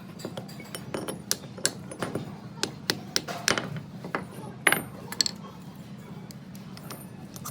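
Metal tools and parts clinking and tapping against each other in irregular sharp knocks, about a dozen, thickest in the first half, over a steady low hum.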